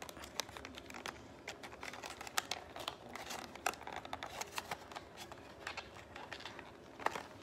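Fingers working open a small cardboard lipstick box: irregular light clicks, taps and rustles of the card being handled.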